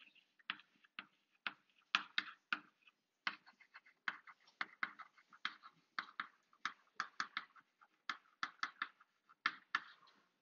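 Chalk writing on a blackboard: an irregular run of sharp taps and short strokes, a few a second, as letters are written, stopping just before the end.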